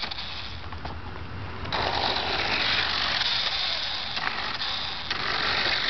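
Battery-powered toy car's small motor, gears and plastic wheels running across rough asphalt: a steady grinding rattle that grows louder a little under two seconds in, with a few faint clicks.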